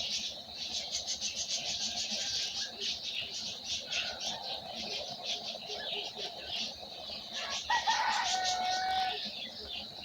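Many small birds chirping rapidly and continuously. About eight seconds in, a louder, lower single call sounds for about a second and a half.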